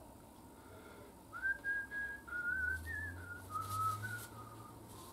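A person whistling a wandering tune to himself: short phrases of sliding, wavering notes, louder from about a second in.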